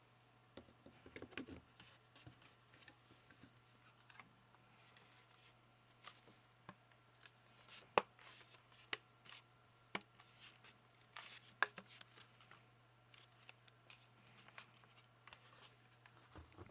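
Custom keyboard parts being handled and fitted during assembly: quiet, irregular small clicks, taps and light scraping of plastic and metal pieces, with a few sharper clicks in the middle.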